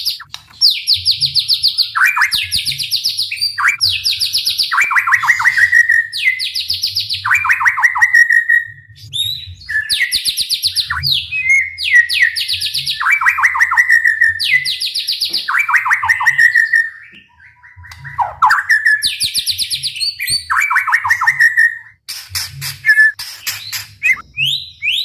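White-rumped shama singing loud, rapid-fire bursts, about one a second. Each burst is a fast run of repeated high notes, some sliding down at the end. There is a short break in the middle and a quick clicking rattle near the end.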